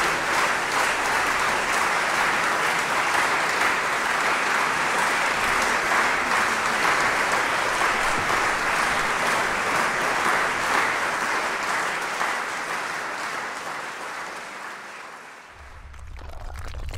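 Audience applauding, steady at first and then fading away over the last few seconds. Near the end a low rumbling sound effect comes in as the clapping dies out.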